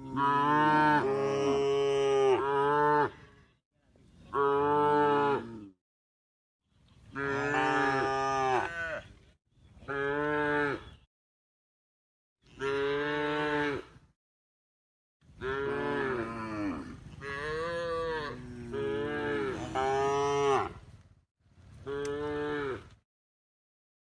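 Cattle mooing: a string of about nine separate drawn-out moos, each one to three seconds long, with dead silence between them.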